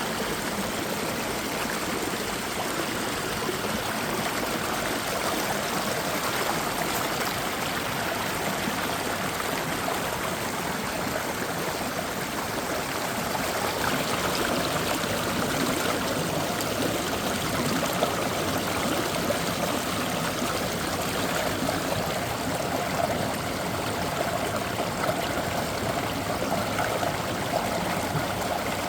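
Mountain stream flowing steadily, a continuous rush of running water.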